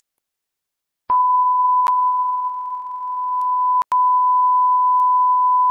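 Television test-card tone: one steady beep at a single pitch, the reference tone that goes with colour bars. It starts about a second in after a moment of silence and cuts out for an instant near four seconds.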